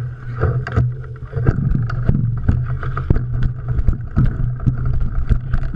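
Mountain bike riding over rough trail, with a steady low rumble on the microphone and frequent sharp clicks and rattles from the bike.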